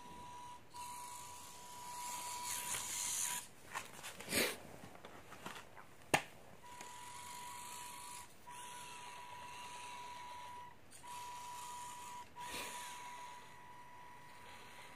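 Electric motor and gearbox of a mini RC crawler driving, a thin steady whine that cuts in and out several times with the throttle, over a rustling scrape of tyres on cloth. A few knocks in the middle, the sharpest about six seconds in, as the truck bumps down onto the blanket.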